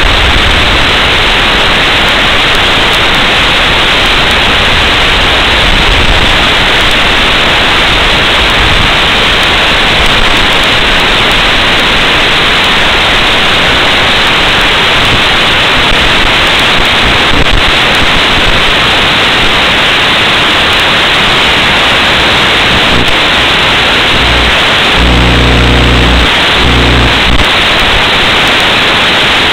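Steady, loud static hiss from an analog FPV video receiver's audio channel, recorded along with the goggles' video. About 25 seconds in, a low stuttering buzz breaks in for about two seconds.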